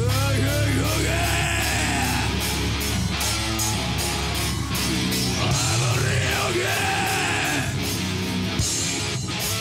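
Heavy metal band playing live: distorted electric guitars and a drum kit, with yelled vocals over them.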